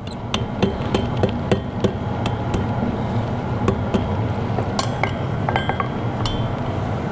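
Light, irregular hammer taps of steel on iron on an anvil, a few a second, as a small forged iron pendant is tapped into line, over a steady low drone.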